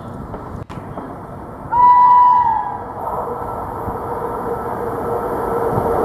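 Electric locomotive sounds one horn blast of about a second, its pitch sagging as it ends, then the approaching train's running noise builds steadily louder.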